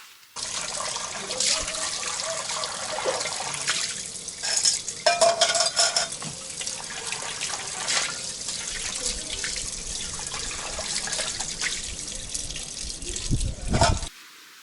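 Tap water running into a sink while a small pot is rinsed and washed, with scattered knocks and clinks.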